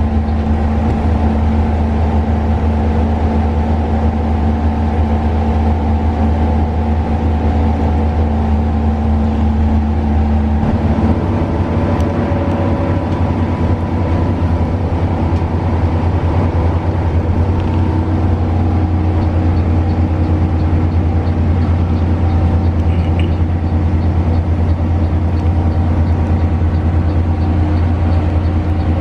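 Front-mounted diesel engine of a coach droning steadily while cruising, heard from inside the cabin; the engine note shifts about eleven seconds in.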